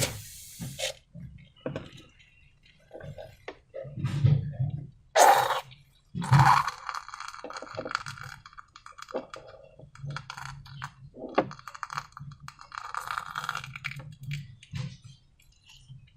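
Slime and balloon handling sounds: irregular clicks, taps and crackling rustles, with two louder bursts about five and six seconds in.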